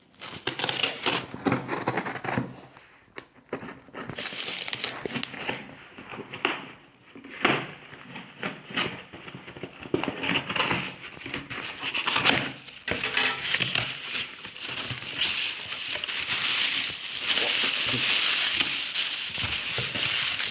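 Packaging being handled and opened during an unboxing: plastic and cardboard crinkling and rustling, with scattered clicks and crackles. The rustling turns denser and steadier in the last few seconds.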